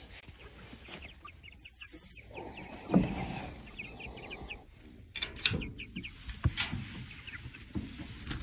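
Chickens clucking near the coops, with straw rustling and a few knocks, the loudest a thump about three seconds in.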